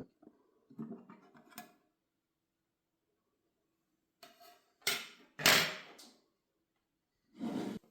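Clattering and knocking of small hard parts being handled, likely pieces of the device's casing and screws set down during disassembly. It comes in a few short spells with a pause between, the loudest about five and a half seconds in.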